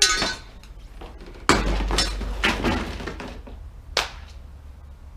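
A few sharp knocks and clinks of hand tools and plastic car parts being handled, with one loud knock about a second and a half in and another near four seconds.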